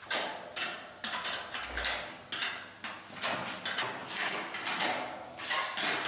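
Irregular knocks and metallic clatter, a couple a second, with some scraping between them, as stainless steel chimney pipes are handled and fitted together.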